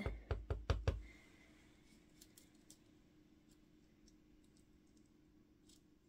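A clear acrylic stamp block tapped several times on a black ink pad to ink the stamp: a quick run of about five knocks in the first second, then only faint small ticks as it is handled.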